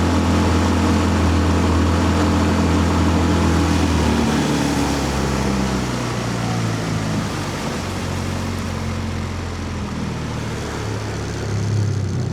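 15 hp four-stroke outboard motor running at high throttle. About four seconds in its note drops and turns uneven, with a brief surge near the end: the engine is misfiring at high rpm once warmed up, cause not yet found.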